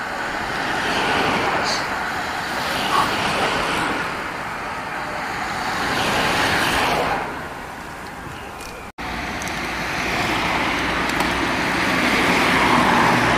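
Racing bicycles going past in small groups, a rush of tyres and wheels on asphalt that swells as each group goes by. The sound cuts out for a moment about nine seconds in, then builds again as more riders approach.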